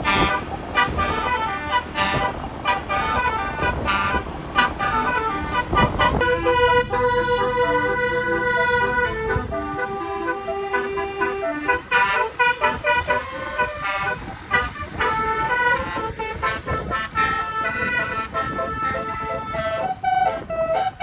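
Indonesian 'telolet' bus horn, a multi-trumpet musical air horn, playing a tune of stepped tones: quick repeated notes at first, then from about six seconds in longer held notes, over a low vehicle rumble.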